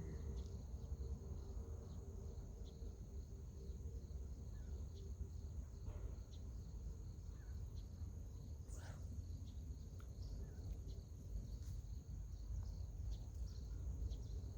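Insects chirring steadily in a high-pitched, pulsing chorus over a low rumble, with a few faint short chirps.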